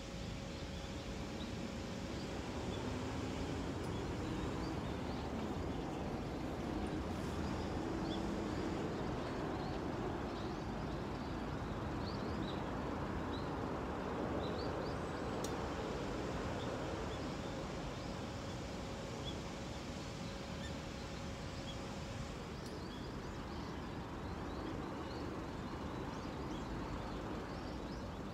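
Open-air background: a steady low rush with small birds chirping over it.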